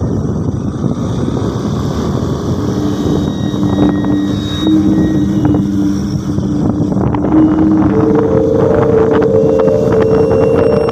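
A motor engine running under loud, rough wind noise on the microphone. A steady low hum comes in about three seconds in, and a higher hum joins about eight seconds in.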